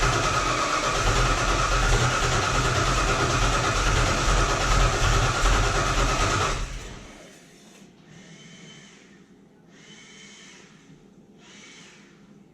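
Fox body Mustang's starter cranking the engine with a steady pulsing beat for about six and a half seconds, then cut off. This is the intermittent crank-but-won't-start fault, which the owner thinks may be fuel-related. Three short, much fainter bursts follow near the end.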